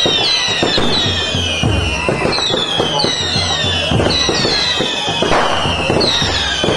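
Fireworks going off continuously: many overlapping shrill whistles, each sliding down in pitch, over a dense crackle of sparks and pops.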